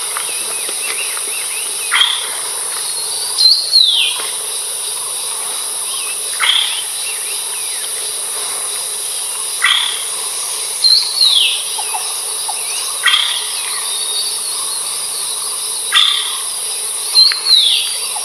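Philippine trogon (Harpactes ardens) calling: short notes that fall sharply in pitch, repeated every couple of seconds, some in pairs, over a steady high-pitched insect drone of tropical forest.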